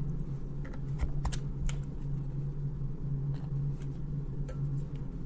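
Scattered light clicks and taps of small screws and rifle parts being handled and fitted by hand, over a steady low hum.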